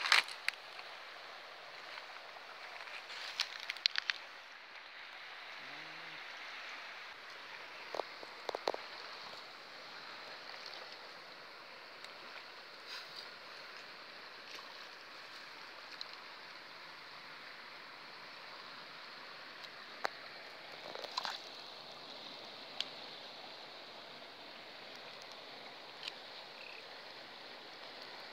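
Fast-flowing muddy river current running along the bank, a steady watery rush. A few brief clicks and knocks sound through it now and then.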